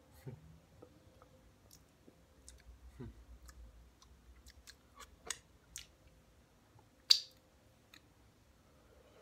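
Scattered light clicks and taps of fingertips and nails scraping the last salad bits around a clear bowl, with one sharp knock about seven seconds in.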